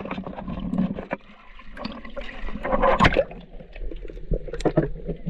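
Water sloshing and gurgling around a camera held half-submerged at the surface, with splashes and scattered sharp clicks; the loudest splash comes about three seconds in.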